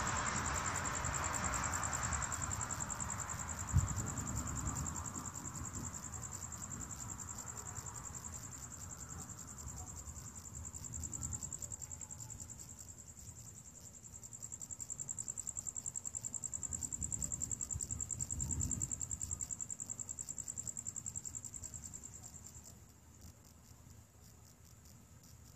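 Crickets chirping in a steady, high, fast-pulsing trill that drops away near the end. Under it a hiss fades out over the first ten seconds, and low rumbles come and go, with a brief knock about four seconds in and a longer swell a little past the middle.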